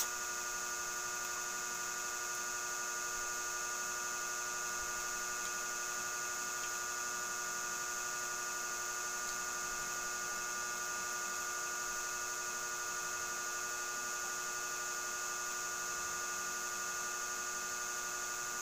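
A steady electrical hum and whine, several unchanging tones sounding at once, with a few faint ticks.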